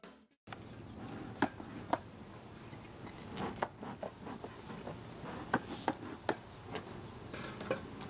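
A bee smoker being worked at a beehive: a scattering of sharp clacks and knocks over a steady faint hiss.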